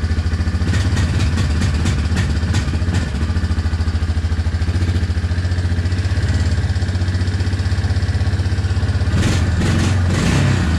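Yamaha Big Bear 400 ATV's single-cylinder four-stroke engine running at idle with the thumb throttle pushed now and then. When the throttle opens, the engine wants to fall on itself rather than pick up, a stumble that the owner takes for an air problem because it runs better on choke.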